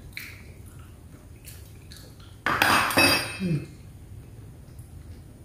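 A metal fork clinking against a ceramic plate: two quick ringing strikes about two and a half seconds in, with faint small clicks around them.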